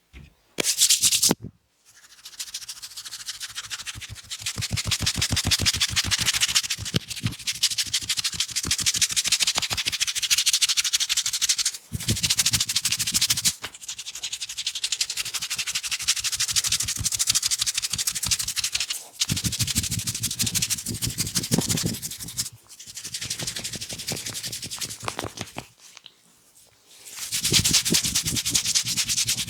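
Oiled hands rubbing and kneading skin in a massage, close to the microphone: a fast, dense rubbing sound that stops briefly several times.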